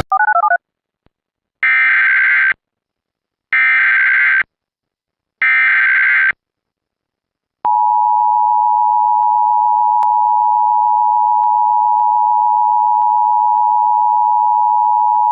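Emergency Alert System tones: three short bursts of the digital SAME header, each about a second long with a second's gap between them, then the steady two-tone EAS attention signal starting about eight seconds in and held to the end.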